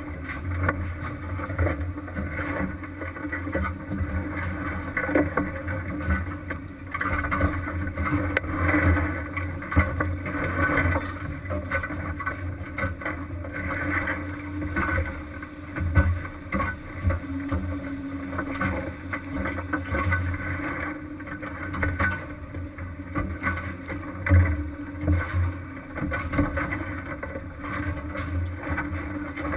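Fishing boat at sea: the engine drones steadily under wind and sea noise, with a few louder knocks.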